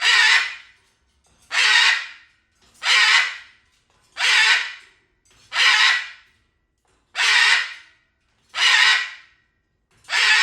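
An animal's harsh, raspy call, repeated eight times at an even pace of about one every second and a half.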